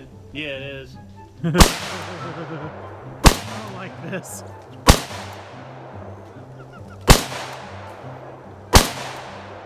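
AK-74 rifle (5.45×39mm) firing five single shots, about one and a half to two seconds apart, each with a short echoing tail. It is fitted with a bump-fire stock, but the stock is not giving rapid fire: the rifle fires only single shots.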